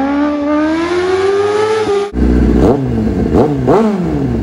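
Kawasaki Ninja ZX-9R's inline-four engine accelerating hard, its pitch climbing steadily for about two seconds. After a sudden cut, the engine is revved in three quick blips.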